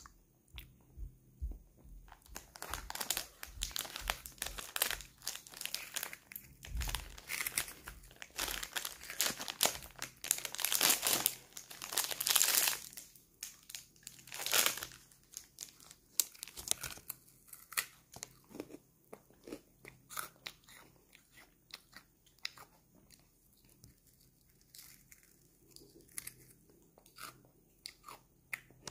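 A child biting and chewing a freeze-dried Earth jelly (planet gummy) that has gone hard and crisp. Dense, loud crunching runs from about two seconds in to about thirteen seconds, then thins to occasional softer crunches.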